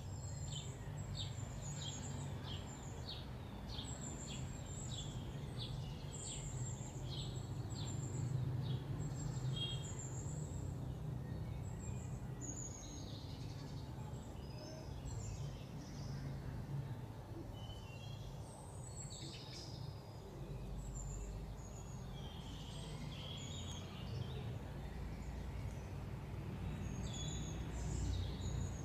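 Small birds chirping in quick, short repeated notes, thickest in the first half and again near the end, over a steady low hum.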